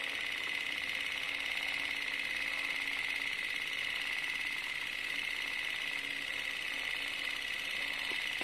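Cine film projector running: a steady mechanical rattle and whir.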